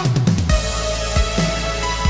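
Electronic dance music: a deep bass sweep falls in pitch, then about half a second in a sustained sub-bass and held synth chord come in, with kick drums from about a second in.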